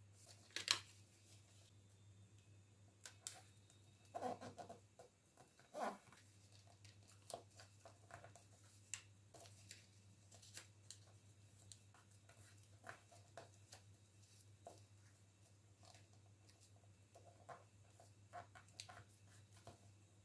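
Faint rustling and crinkling of a sheet of embossed coloured paper being folded into an accordion pleat and creased by hand, with louder crinkles about a second in and again around four to six seconds in. A low steady hum runs underneath.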